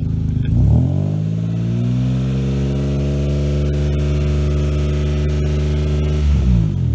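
Saab 900 V6 engine revved: the revs dip, climb about a second in, hold steady at a raised speed for several seconds, then drop back near the end.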